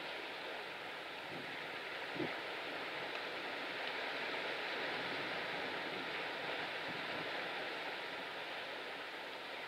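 Steady rushing noise of sea waves and wind, with one short knock about two seconds in.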